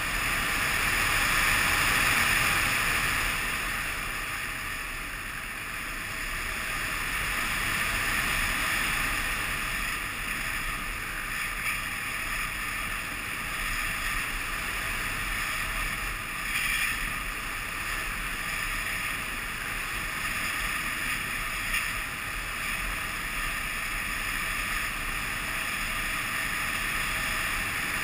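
Air rushing past an onboard camera on an Easystar 2 RC plane in flight, with the plane's electric pusher motor and propeller running steadily underneath. The rush swells louder a couple of seconds in and again around eight seconds.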